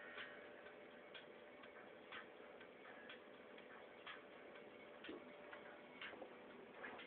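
Faint, regular ticking, about one tick a second, over a low steady hum.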